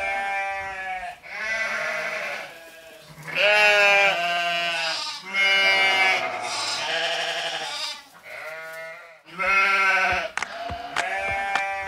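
Sheep bleating, about six long calls one after another with short pauses between them.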